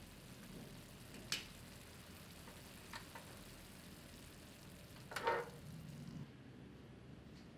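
Tomato sauce with diced vegetables simmering in a frying pan: a faint steady sizzle with a sharp tick about a second in and a louder pop about five seconds in. The sizzle's hiss drops away about six seconds in.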